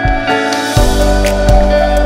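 Background music: sustained chords with light, regular percussion strokes, a deep bass coming in a little under a second in.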